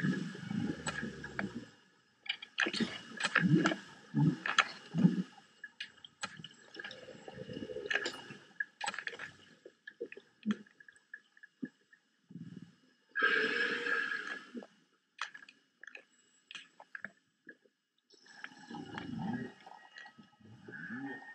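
Underwater sound picked up by a GoPro lowered into the sea: irregular low groaning swells and gurgling water noise, broken by scattered sharp clicks and a burst of hiss about two-thirds of the way in.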